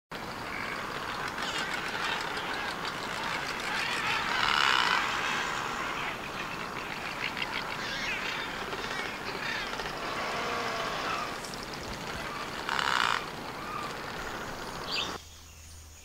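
Many birds calling at once over a steady hiss, with louder calls about four and a half seconds in and again near the end; the sound cuts off about a second before the end.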